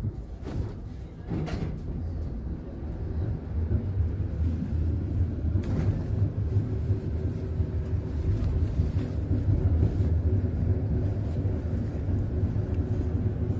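Konstal 105Na tram pulling away and gathering speed, heard from inside the car. A steady low rumble of wheels on rails runs under a faint whine from the traction motors and reduction gearing, and it grows louder about four seconds in. A few knocks come in the first couple of seconds.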